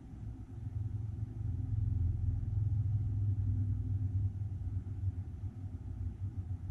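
A low rumble that swells for a few seconds in the middle and then eases off a little.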